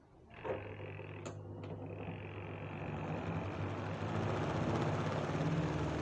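Hisense WSJA751 twin-tub washing machine's motor starting and spinning up, a steady hum that grows louder over the first few seconds, with two sharp clicks about a second in.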